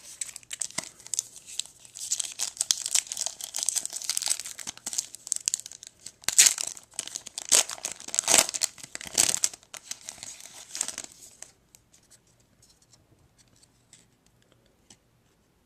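Panini Americana trading-card pack wrapper being torn open and crinkled by hand, a dense crackling that is loudest about six to nine seconds in. After about eleven seconds it drops to a few faint ticks of handling.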